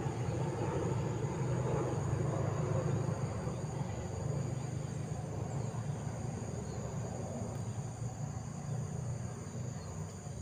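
Outdoor swamp ambience: insects droning at several steady high pitches over a steady low rumble, which eases slightly toward the end.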